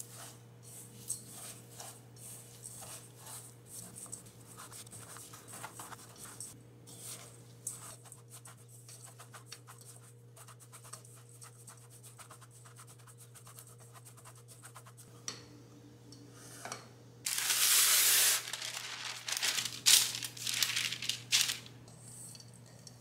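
Silicone spatula stirring rolled oats and walnuts in a stainless steel bowl: many soft, quick scraping and rustling strokes as the dry mix is tossed. About seventeen seconds in comes a few seconds of much louder rustling and scraping, as the granola mix is tipped and scraped out onto parchment paper.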